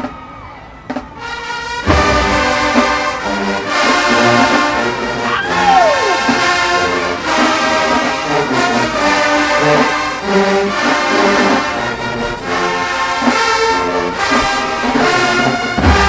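Marching band brass section playing loud sustained chords, led by trombones and trumpets, with a downward slide in pitch about six seconds in. It comes in about two seconds in after a few quiet drum clicks.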